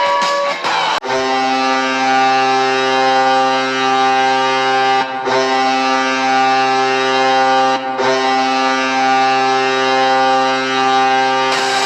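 Hockey arena goal horn of the Colorado Avalanche blowing one long, steady, chord-like blast with two brief breaks, over guitar-driven goal music. It starts just after a cut about a second in and stops near the end.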